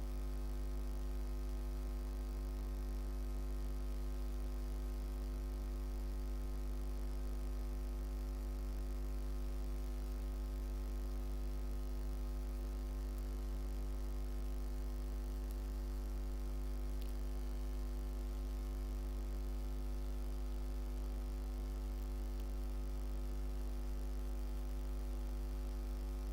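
Steady electrical mains hum, a deep buzz with a stack of overtones that holds unchanged throughout.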